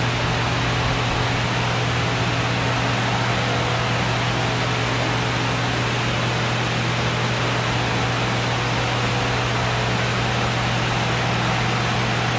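Large gym floor fan running: a steady whoosh of moving air with a constant low motor hum under it.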